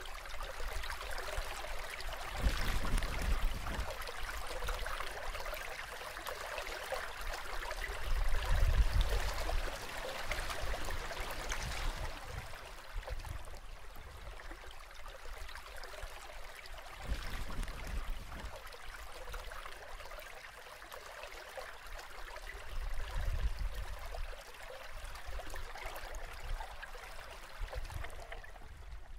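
A small stream splashing and gurgling steadily over stones, with a few short low rumbles mixed in.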